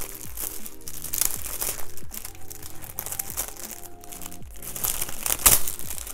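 Clear plastic packaging crinkling as it is handled and opened, in irregular crackly bursts, the loudest about five and a half seconds in, over background music.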